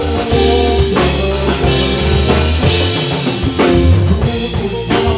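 Band music in a short instrumental passage between sung lines: drum kit with bass drum and snare hits over sustained bass notes.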